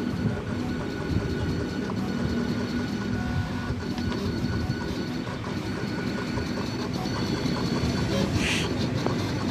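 Jinka vinyl cutting plotter at work: its motors whir steadily as the blade carriage travels and the rollers feed the sticker vinyl back and forth, over a low running hum, with the whir's pitch shifting as the moves change.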